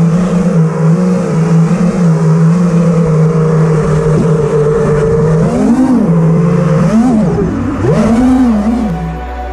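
FPV freestyle quadcopter's brushless motors and propellers whining, heard through the onboard camera's microphone. The pitch holds fairly steady for about five seconds, then swoops up and down several times as the throttle is worked, and drops just before the end.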